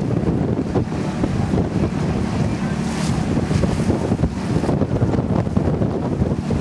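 Wind buffeting the microphone, a dense, steady low rumble with no distinct tones.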